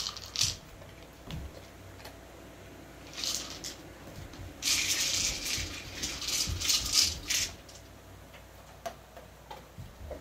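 Dry food rattling inside a plastic treat-dispensing ball as a dog noses it and rolls it along. It comes in several bursts, the longest about three seconds near the middle.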